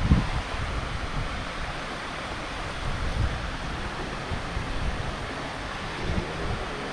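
Wind on the microphone: a steady rushing hiss with low, gusty rumbles, strongest right at the start and again about six seconds in.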